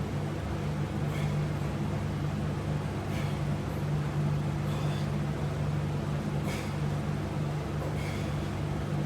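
A steady low hum, with faint clicks about every second and a half.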